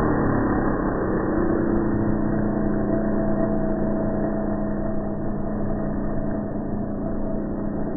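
Traxxas Revo 3.3 nitro RC truck's small two-stroke glow engine running at a steady pitch, slowly getting quieter.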